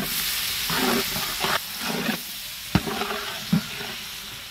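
Sliced onions and bell peppers sizzling in a large aluminium pot as they are stirred with a long metal ladle that scrapes through the vegetables. There is one sharp knock a little past halfway.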